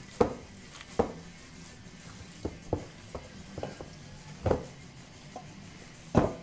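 Hands kneading and squishing raw ground-meat meatball mixture in a stainless steel bowl, with about seven short wet slaps and knocks, the loudest near the end.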